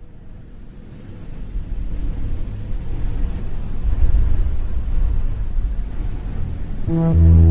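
Background music: a low, noisy rumbling swell that builds steadily in loudness, with a sustained low chord coming in near the end.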